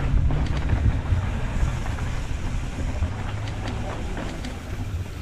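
Wind buffeting the microphone on a mountain bike trail descent, over the hiss and crunch of the tyres on the dirt trail, with scattered clicks and rattles. The low buffeting is heaviest at first and eases somewhat in the second half.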